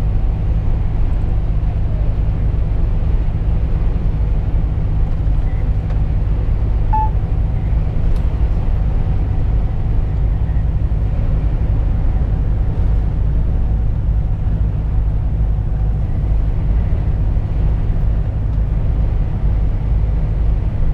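Volvo FH 460 truck's six-cylinder diesel engine running at a steady cruising speed, heard from inside the cab as a steady low drone mixed with road noise.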